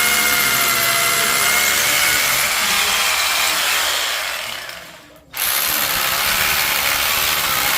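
Electric power drill running under load, likely boring holes for epoxy-set rebar pins. It fades out about five seconds in, then starts again abruptly at full speed.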